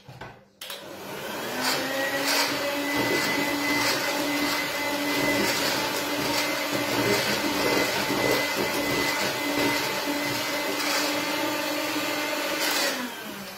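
Handheld electric mixer starting up, its whine rising in pitch for about a second and then holding steady as the beaters churn cake batter in a bowl, before it winds down near the end.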